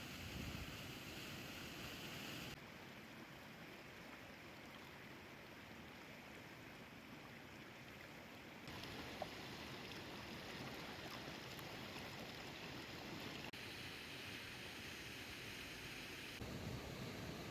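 Faint steady outdoor rushing noise. Its tone changes suddenly several times, as if cutting between different recordings.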